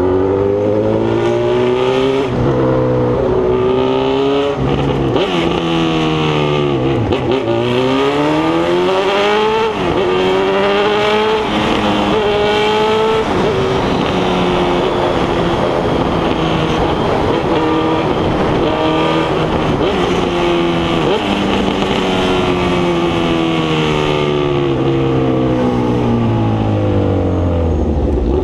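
Honda CB1000R inline-four motorcycle engine under way with a loud exhaust note, its pitch climbing and dropping again and again as it pulls through the gears, then holding steady at cruise before falling away as it slows near the end.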